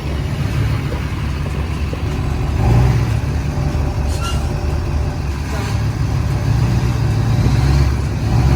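Large truck engine running at low speed as the truck creeps forward, a heavy steady rumble that swells twice as the driver gives it more throttle, about three seconds in and again near the end.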